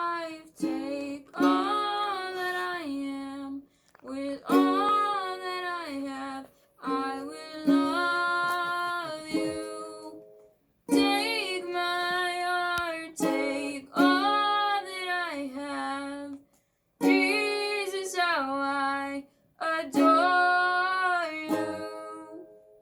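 Ukulele strummed in chords, in phrases of a few seconds with short breaks between them, with a voice carrying the tune over it.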